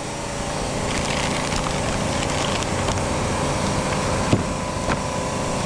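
Steady machine hum of a running motor with a constant noisy background. A couple of short sharp clicks or knocks come about four and five seconds in.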